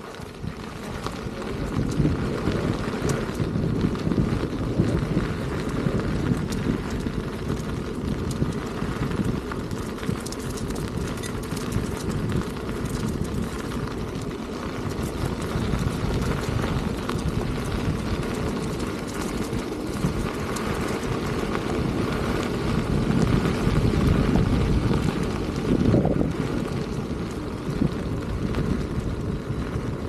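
Wind buffeting the microphone of a camera riding on a Begode Master electric unicycle in motion, a steady low rushing that picks up over the first couple of seconds.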